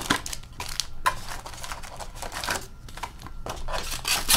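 A box of Synergy hockey cards being opened by hand and its foil card packs pulled out and set down: irregular rustling and crinkling of cardboard and pack wrappers with a few sharper taps, the loudest near the end.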